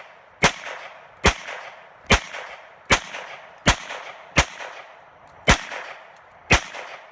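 Glock pistol fired in a steady string of eight shots, a little under one a second, each shot sharp with a short echo after it, as the magazine is emptied.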